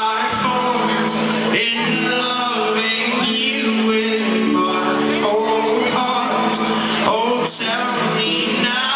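Live folk-rock band playing: a man singing over strummed acoustic guitar, with the rest of the band holding sustained chords underneath.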